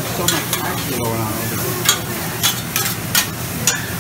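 Food sizzling on a Mongolian barbecue flat-top griddle while metal spatulas scrape and clack on the hot steel, with sharp clicks about twice a second.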